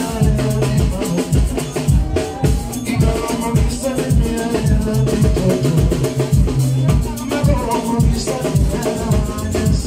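Loud dance music with a steady drum beat and a repeating melody.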